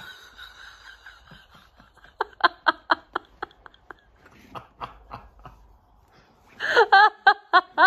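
Laughter in short repeated ha-ha pulses, starting about two seconds in, trailing off, then breaking out louder near the end.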